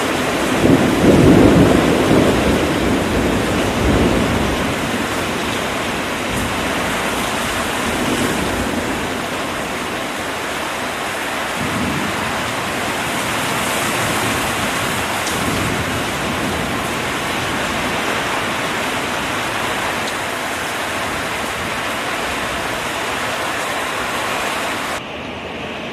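Heavy rain pouring steadily in a thunderstorm, with a long rumble of thunder in the first few seconds and fainter rumbles later. About a second before the end the sound drops suddenly and turns duller.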